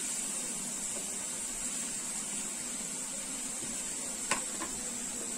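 Chopped capsicum and onion sizzling in hot oil in a pan, a steady hiss, with one sharp click about four seconds in.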